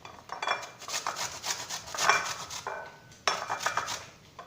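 Raw turnip being rubbed back and forth on a hand grater, a quick run of rough rasping strokes, a short pause about three seconds in, then a second shorter run.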